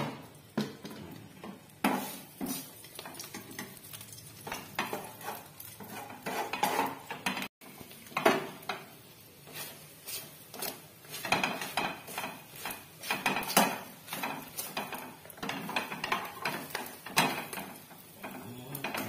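A steel spoon and a wooden spatula scraping and tapping irregularly against a nonstick frying pan as an egg-coated paratha is pushed around, spun and turned, over a light sizzle of oil.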